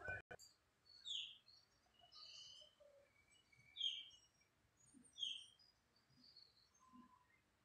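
Faint bird chirps: three louder short falling chirps a second or more apart, with softer, higher twitters between them.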